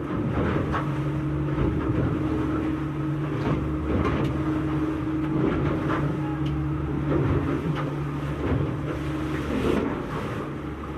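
Motor of a 7.5 m center cabin boat running at a steady pitch under way, over a steady rush of wind and water, with scattered knocks as the hull meets the waves.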